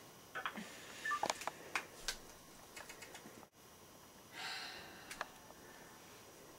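Flip phone keypad being pressed: a run of short clicks and brief keypad beeps over about three seconds, then a short soft rush of noise about four and a half seconds in.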